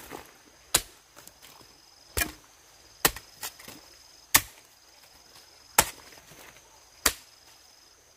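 Wood being chopped by hand: about seven sharp chopping strikes, roughly one every second or so, a few of them lighter. A steady high-pitched trill runs behind them.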